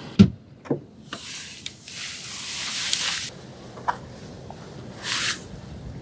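Car door sounds: a heavy thump about a quarter-second in, then lighter knocks and clicks, with scuffing footsteps and rustling on dry dirt.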